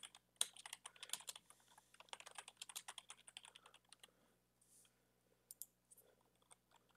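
Computer keyboard typing, faint: a quick run of keystrokes for about four seconds, then a few scattered key presses.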